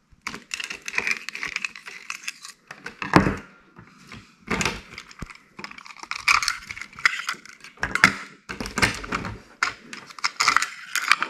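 Telescopic fishing rods handled on a table: an irregular run of light clicks, taps and rattles as the rod sections and guides knock together, with a louder knock about three seconds in.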